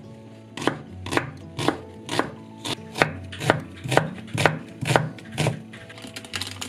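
Kitchen knife slicing an onion on a wooden cutting board: about eleven even cuts, roughly two a second, each ending in a knock of the blade on the wood, stopping about a second before the end.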